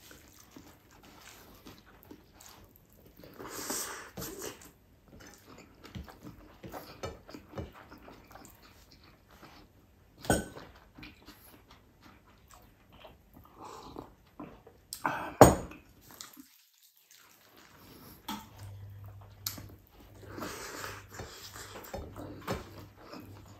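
Close-up eating sounds of a man eating rice and sardines by hand: chewing and mouth noises, and a sip of hot coffee. Two sharp knocks of tableware on the table, about five seconds apart, the second the loudest.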